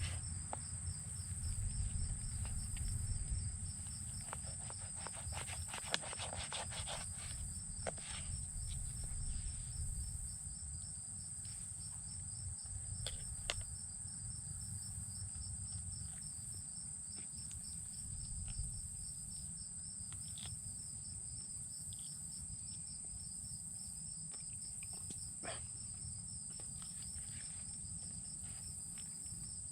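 Insects trilling steadily in a high, even, fast-pulsing drone, with a low rumble beneath and a few faint scattered clicks.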